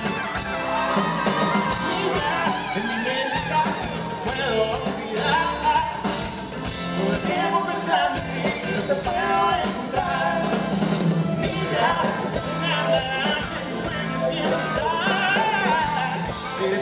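Live pop-rock band playing, with a male lead singer singing over electric guitars and keyboards.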